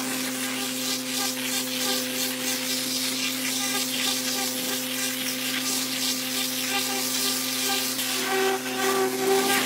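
Hydro-excavation: a high-pressure water lance blasting soil while a vacuum excavator's suction hose draws up the muddy slurry, a steady rushing hiss over a constant machine hum. A higher, whistle-like tone joins near the end.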